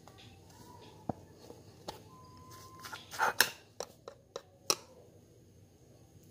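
A few sharp knocks and clicks as a cinnamon shaker jar is handled and shaken over a ceramic bowl of sliced apples. The loudest come a little past three seconds in and near five seconds.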